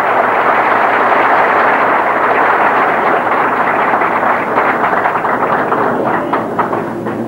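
Audience applauding: a dense patter of many hands clapping, thinning to scattered individual claps near the end.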